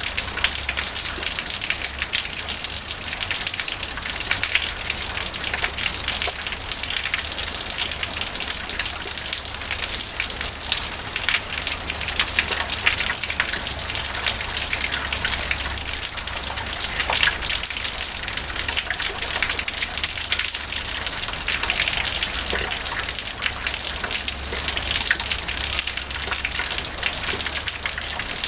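Small waterfall: water pouring from a stone dragon-head spout and splashing into the pool below, with water trickling and dripping off the rock wall. A steady, dense splashing full of small, bright spatters.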